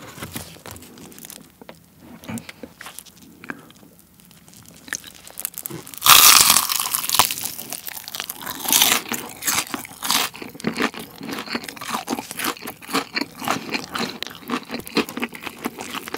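Faint handling rustles as a piece of Kyochon Honey Combo fried chicken is taken from its box, then a loud crunch through the crisp, glazed coating about six seconds in. Repeated crunching and chewing follow to the end.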